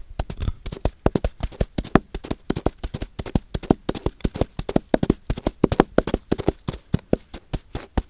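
Foley performance of a galloping horse's hoofbeats: a fast, uneven clatter of sharp clops, several a second, made by hand in the studio.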